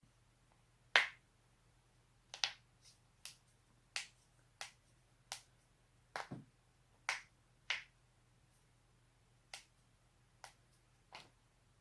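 Knee joints cracking over and over: a series of about fourteen sharp pops at irregular intervals, the loudest about a second in.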